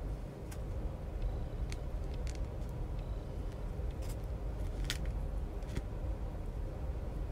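Steady low background hum, with scattered faint clicks and scratches from a wooden skewer being drawn through soft modelling clay along the edge of a paper template.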